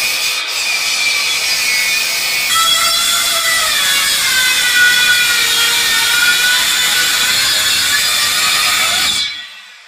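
Electric saws cutting wood: a sliding miter saw for the first couple of seconds, then a circular saw on a guide rail ripping a wooden slab, its whine wavering in pitch as the blade works through the cut. The sound drops away about nine seconds in.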